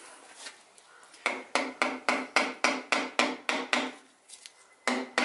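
Butt of a wooden handle tapping the crown of a Cummins 6.7 piston, driving it through a ring compressor into its cylinder bore. About a dozen quick, even taps come at about four a second, then a short pause, then a few more near the end.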